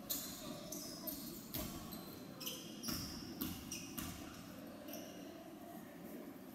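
Basketball bouncing on a hardwood gym floor, several separate thuds a second or more apart, mixed with repeated short, high-pitched squeaks of basketball shoes on the court.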